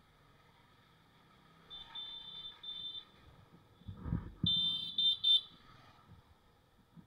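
High-pitched beeping in short repeated pulses, a softer run about two seconds in and a louder run a couple of seconds later. A brief low rumble and knock comes just before the louder beeps.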